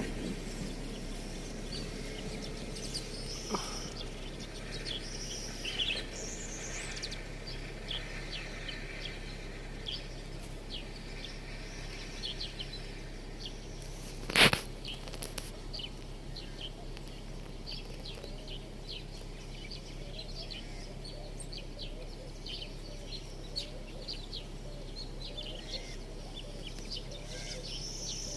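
Small birds chirping and twittering, many short high calls throughout. A sharp knock about halfway through, over a steady low hum.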